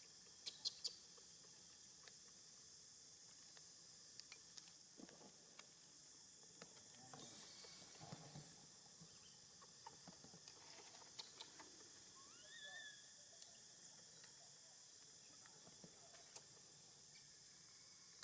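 Quiet outdoor ambience with a steady high hiss, a few sharp clicks in the first second, scattered light taps and rustles, and one short squeaky call that rises then falls about twelve and a half seconds in.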